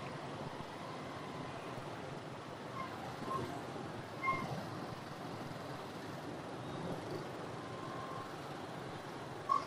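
Many motorbike engines idling and creeping along in a packed traffic jam, a steady hum. A few short horn beeps sound about three and four seconds in and again near the end.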